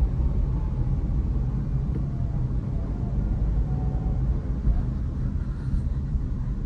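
Cabin noise of a Renault Kwid 1.0 three-cylinder hatchback on the move: a steady low rumble of engine and road noise heard from inside the car.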